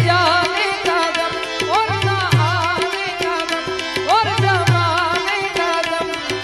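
Indian devotional bhajan music: a tabla-style beat with deep bass strokes under a steady drone, and a lead melody sliding in ornamented, wavering phrases.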